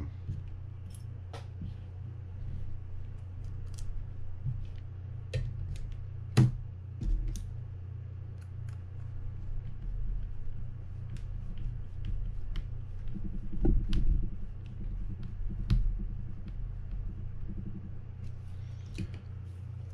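Scattered small clicks and taps of a mini screwdriver and metal reel parts as a screw is driven into a baitcasting reel's side plate, with one sharper click about six seconds in and a few dull knocks later. A steady low hum runs underneath.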